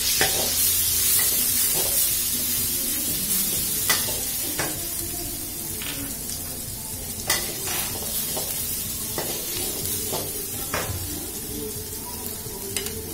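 Pounded coriander root, pepper and garlic paste sizzling in hot oil in a wok while a metal spatula stirs it, scraping and knocking against the pan now and then. The sizzle is loudest at first and gradually eases off.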